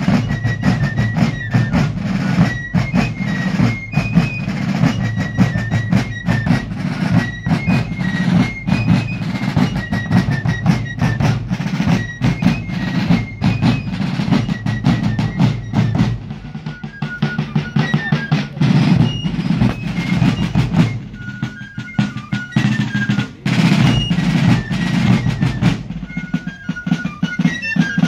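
Fife and drum corps playing a march: massed fifes carry a shrill stepping melody over snare drum rolls and bass drum beats. The drumming thins out for a few seconds past the middle while the fifes play on.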